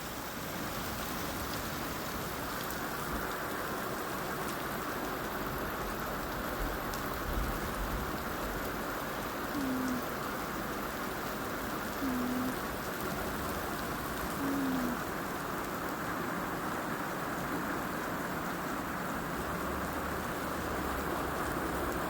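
Heavy rain pouring steadily on an RV's tin roof, an even hiss of rain with no break. Three brief low pitched sounds come about two and a half seconds apart midway through.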